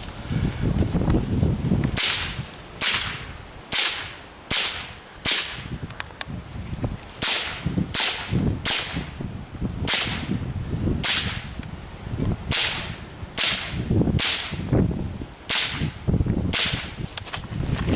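.22 LR rifle shots fired in a steady string, about sixteen sharp cracks roughly one a second, starting about two seconds in, with a low rustling rumble between them.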